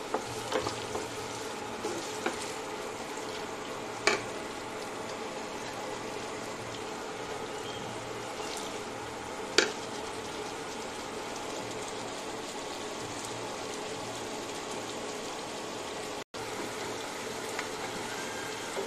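Sliced onions, garlic cloves and bay leaves sizzling steadily in hot oil in a pan, with a few sharp taps of the spatula against the pan, the loudest about four and nine and a half seconds in.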